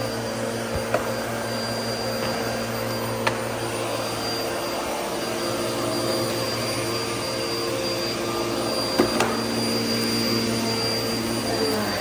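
Upright vacuum cleaner running steadily on carpet, a constant motor hum with a high whine. A few sharp knocks stand out about a second in, a little after three seconds, and twice close together near nine seconds.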